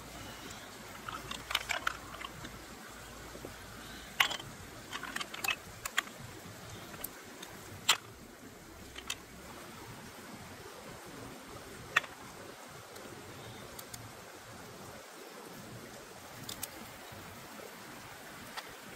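Snail shells clicking and knocking as they are handled and picked at with a twig: a few scattered sharp clicks, the loudest about 8 and 12 seconds in. Under them, the steady rush of a stream.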